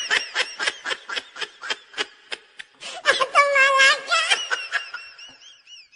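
Laughing sound effect: a rapid run of short laughs, about four a second. About three seconds in comes a high-pitched held laugh, which trails off into a fading, wavering giggle.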